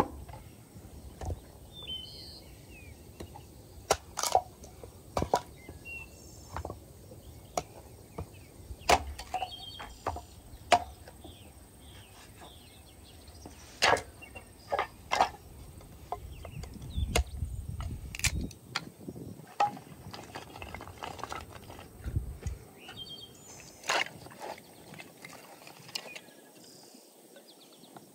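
Hatchet chopping and splitting firewood on a stump: sharp wooden knocks at irregular intervals, several in quick runs, with wind rumbling on the microphone.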